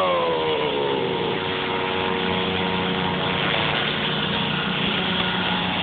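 Small gas engine of a lawn-care power tool dropping in pitch from a rev over the first second, then running steadily at a lower speed.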